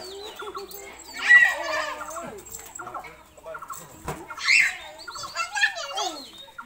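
Small children's voices squealing and babbling as they play, with two louder squeals, about a second in and about four and a half seconds in.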